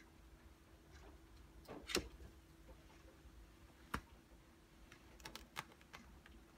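A cat's paws and claws tapping and scuffing as it steps from a wooden table onto a leather bench, making a few sharp clicks, the loudest about two seconds in, with a small cluster after five seconds. A faint steady hum lies underneath.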